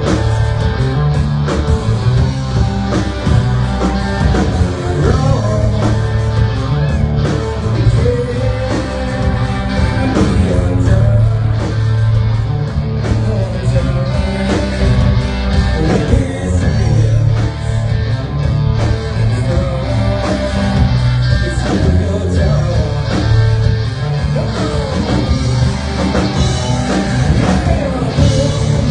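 Live rock band playing loud, with electric guitar and a singer over a heavy bass.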